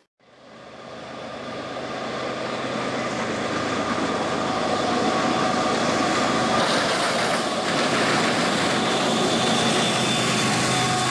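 CSX freight train led by GE diesel locomotives approaching, its engine rumble fading in and growing louder over the first few seconds, then running steadily as the lead units draw near.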